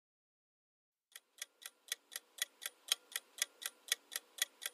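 Countdown-timer sound effect of a clock ticking: quick, even ticks about four a second, starting about a second in and growing louder.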